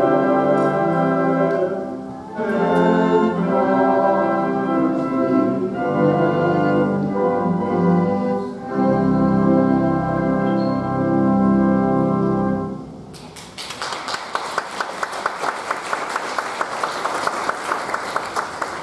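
Organ and piano playing sustained chords, with the piece ending about 13 seconds in. Then a congregation applauds, a dense patter of clapping that carries on to the end.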